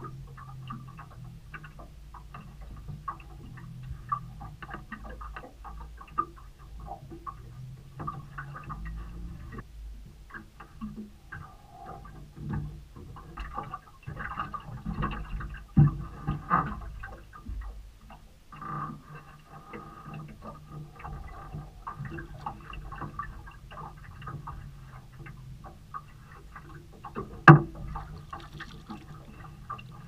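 Water slapping and small knocks and clicks against a small boat's hull and deck, over a low steady hum, with a sharp knock about halfway through and another near the end.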